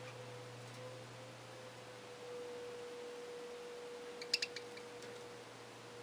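A short burst of two or three sharp budgerigar chirps a little past four seconds in, over a faint steady tone and low hum.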